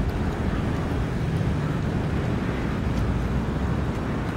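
Steady low rumbling wind noise on the camera microphone outdoors, with no clear separate sound above it.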